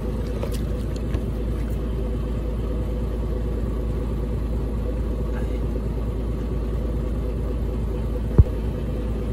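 Small boat's engine running steadily with a low hum. A single knock sounds about eight seconds in.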